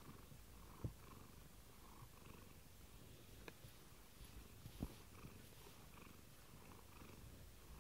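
Domestic tabby cat purring faintly and steadily while being stroked, with a few faint clicks.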